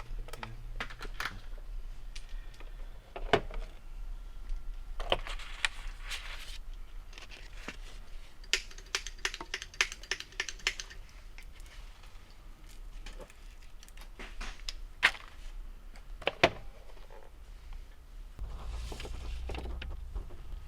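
Handheld label maker in use: quick runs of small plastic key taps and scattered sharp clicks, over a steady low hum.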